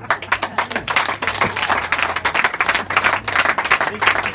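Audience clapping, a dense steady applause.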